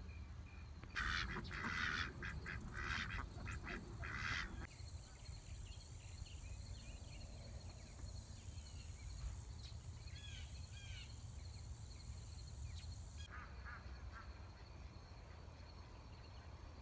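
Farmyard fowl calling in a quick, dense run of loud calls for a few seconds, followed by scattered small bird chirps over a steady high-pitched hiss.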